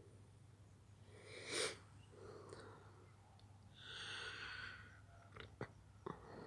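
A person sniffing and breathing noisily through a stuffy nose: one short sharp sniff about a second and a half in, then a longer hissing breath around the four-second mark, with a few small clicks near the end. The sniffling goes with a sticky throat and an oncoming cold.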